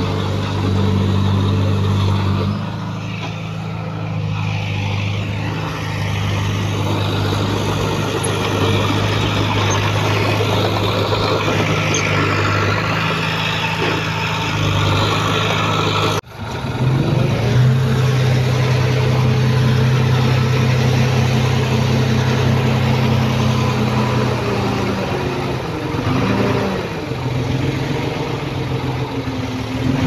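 Heavy earthmoving machinery engines running steadily. The sound cuts off abruptly about halfway through, and a different, steady engine note follows.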